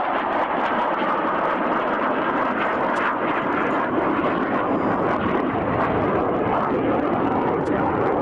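Jet noise from a General Dynamics F-111 swing-wing jet's twin TF30 turbofans as it flies its display, a steady loud rushing sound with no change in pitch.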